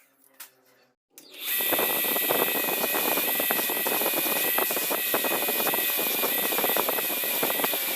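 Electric grinder spinning up about a second in, then running steadily with a high whine and a dense crackle as it works the leaf-spring steel of the blade.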